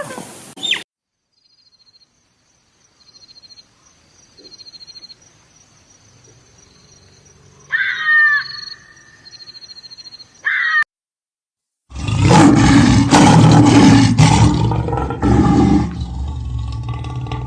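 A large wild animal's deep, loud roaring begins about twelve seconds in. Before it there is faint, rapid high chirping, with short high calls falling in pitch about eight seconds in and again just before ten and a half.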